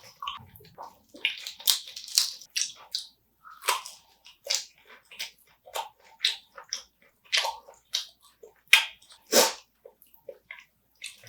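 Close-up chewing and crunching of spicy marinated raw crab, the shell cracking between the teeth in a string of irregular sharp crackles and wet clicks.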